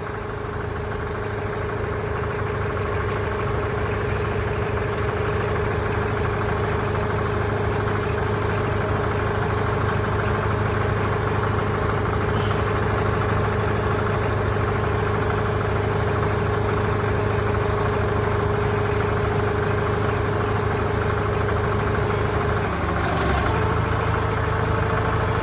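Forklift engine idling steadily. Its note shifts briefly near the end, then settles again.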